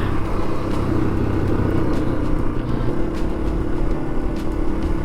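Yamaha TW200's single-cylinder engine running as the motorcycle rides along, its note settling to a steady pitch about three seconds in.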